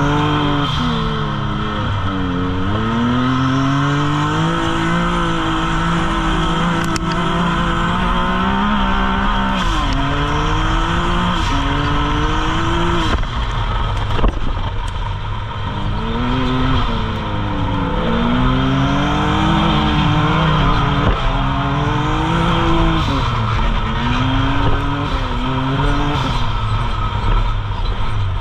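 Can-Am side-by-side's engine heard from inside the cockpit, repeatedly revving up and dropping back as it is driven hard around a dirt short-course track. A sharp knock sounds about halfway through.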